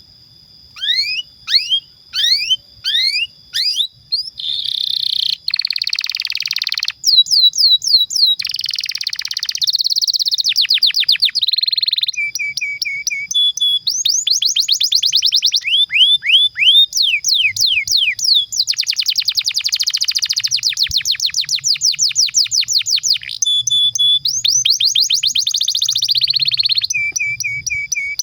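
Domestic canary singing a long, continuous song. It opens with a few separate falling whistled notes about a second in, then runs into buzzy rolls and fast trills of rapidly repeated notes, phrase after phrase without a break.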